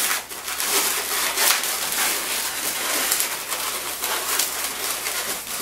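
Gray 260 latex modelling balloon squeaking and rubbing under the fingers as it is twisted by hand into a pinch twist, with many short squeaks one after another.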